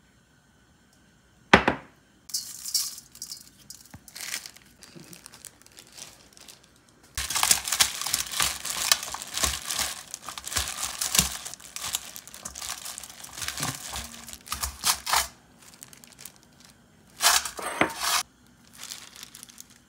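Packaging being crinkled and torn open by hand, in bursts: a sharp click about a second and a half in, then a long stretch of continuous rustling from about seven to fifteen seconds in, and a few more loud crinkles near the end.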